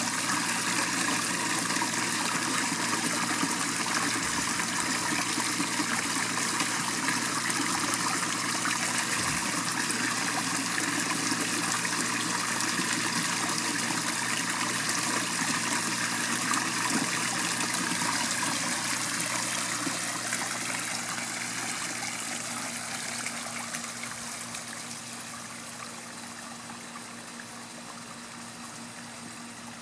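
Small backyard pond waterfall: water spilling over rocks and splashing into the pond in a steady rush, which grows quieter about two-thirds of the way through.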